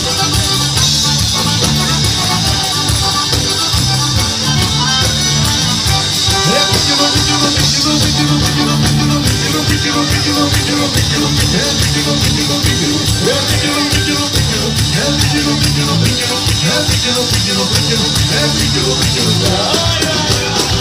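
Instrumental passage of a southern Italian tarantella: a folk band playing a fast, steady dance beat with tambourine jingles over it.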